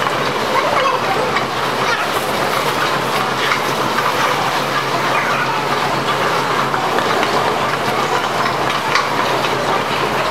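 Métro moving walkway running with a steady mechanical noise, with people walking on it.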